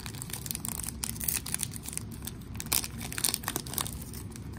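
Foil trading-card pack wrapper being torn open and crinkled by hand, giving many irregular crackles.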